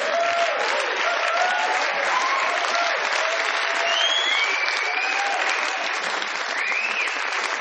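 Large audience applauding steadily after a comedy punchline, with scattered whoops and shouts rising over the clapping.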